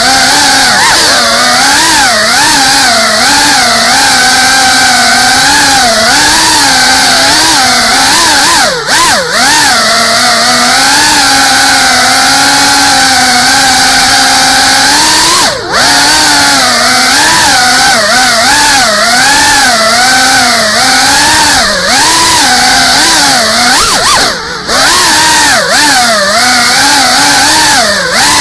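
FPV quadcopter's brushless motors and propellers whining, heard from the onboard camera, the pitch rising and falling constantly with the throttle. The sound drops out briefly a few times as the throttle is chopped.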